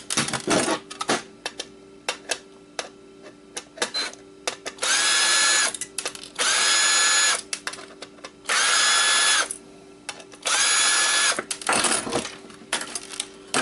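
Power drill-driver running in four short, steady bursts of about a second each, removing screws from a hard drive, with small clicks and knocks of handled parts between the bursts.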